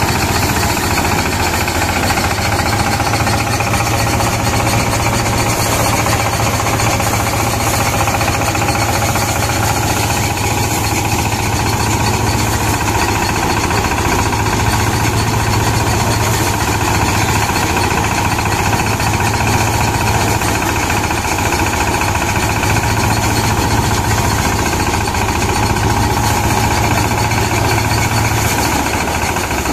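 Engine-driven rice thresher running under load: a loud, steady mechanical rattle with a low hum as bundles of paddy are fed into the spinning threshing drum.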